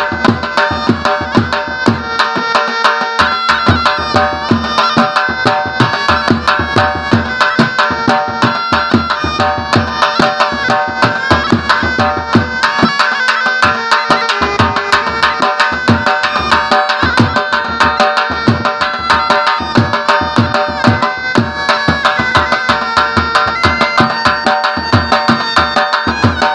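Shehnai, a double-reed wind instrument, playing a held-note melody over fast, steady drumming.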